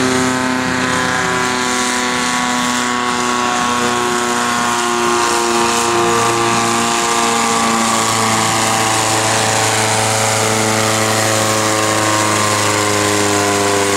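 Red International pulling tractor's diesel engine running flat out under heavy load as it drags a weight-transfer sled, holding a loud, steady note that wavers slightly in pitch.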